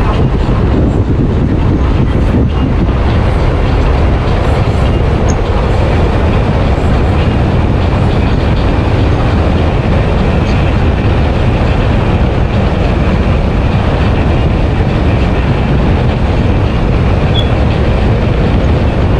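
Wind and road noise on an electric motorcycle at highway speed, about 60 to 80 mph: a loud, steady rushing roar, heaviest in the low end.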